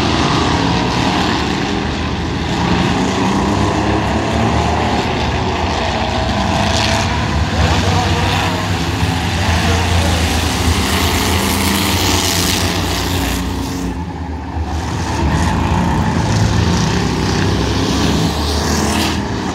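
Several pickup trucks racing around an oval track, their engines running hard and rising and falling as they pass, briefly quieter about two-thirds of the way through.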